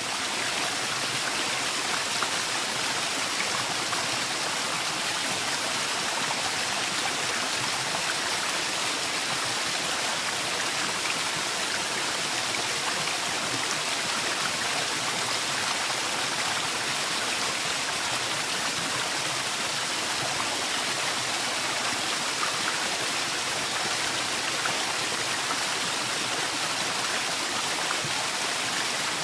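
Waterfall in a forest: a steady, even rush of falling water.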